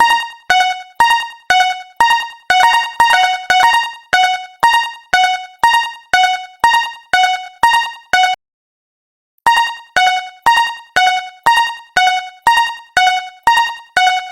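Japanese railroad crossing warning bell ringing, with struck chime tones alternating high and low at about two a second, each fading quickly. It cuts out for about a second just past the middle, then carries on.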